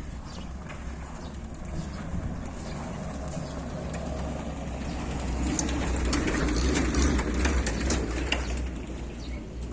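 Footsteps of a person walking, over a low rumble that builds to a peak about seven seconds in and then eases off.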